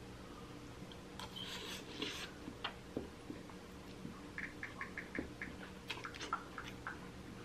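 A man eating Singapore noodles with a fork, chewing close to the microphone: irregular wet mouth clicks and smacks. There is a short noisy burst about a second in and a quick run of small smacks around four to five seconds in.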